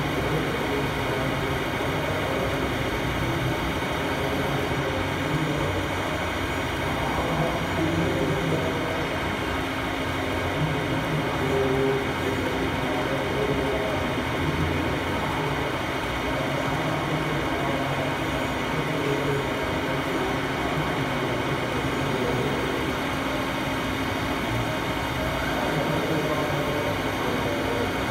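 Steady background noise of a busy hall with an indistinct murmur of many voices.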